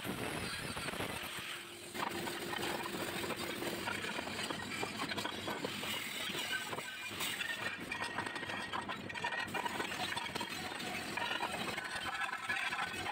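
Steady background noise of a welding workshop, with a few sharp clicks and a short faint hum about two seconds in.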